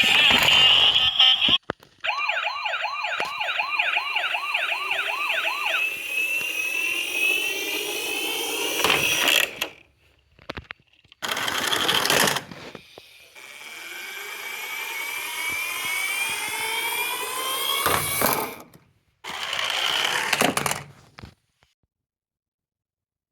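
Electronic siren sounds from toy emergency-vehicle mini cars. They come in several separate runs cut by brief gaps: a fast up-and-down yelp, then slower rising wails. The sirens stop a couple of seconds before the end.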